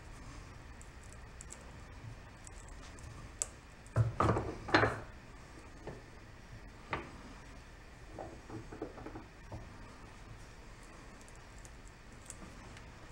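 Steel bench vise being worked by its handle to press a part in slowly: a quick cluster of loud metal clunks about four seconds in, a single knock a couple of seconds later, then a run of light rattles.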